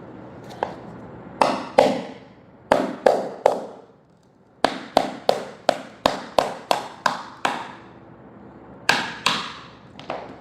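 Hammer striking a chisel to work a laminate floor plank loose: repeated sharp blows in bursts, with a quick run of about three a second in the middle.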